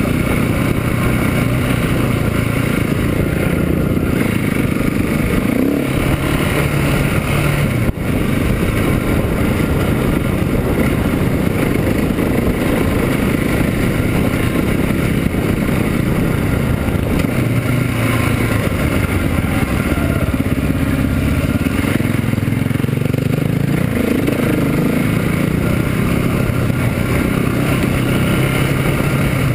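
KTM 690 SMC's single-cylinder four-stroke engine running steadily as the bike is ridden down a dirt trail, its pitch rising and falling with the throttle over a constant rush of trail and wind noise. A single sharp knock about eight seconds in.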